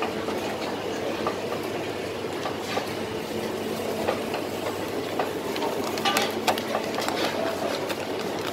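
Steady din of a busy food-stall kitchen with a faint steady hum, under small knocks and paper rustling as rice is pressed into a plastic bowl and turned out onto wrapping paper, busiest about six seconds in.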